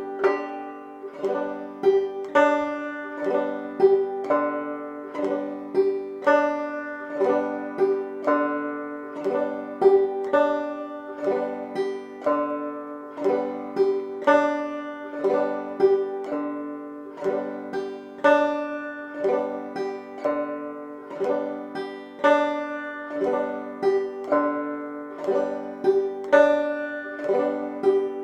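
Clawhammer banjo played with the basic frailing strum (bum-ditty) on open, unfretted strings, the melody note alternating between the first and fourth strings. It goes at a slow, steady tempo of about one beat a second, 60 beats a minute.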